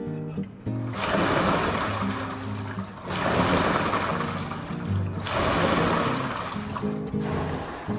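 Water rowing machine's paddle flywheel churning the water in its clear tank, a rushing swoosh that surges with each stroke: three surges about two seconds apart, starting about a second in. Soft acoustic guitar music plays underneath.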